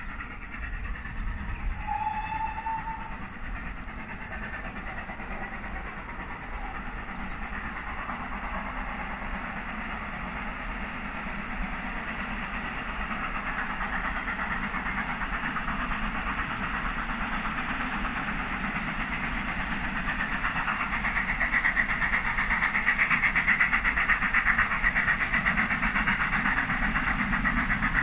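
Two GWR Castle-class 4-6-0 steam locomotives double-heading a passenger train as it approaches. Their rapid exhaust beats grow steadily louder, loudest near the end as the train comes into view, working hard under heavy smoke.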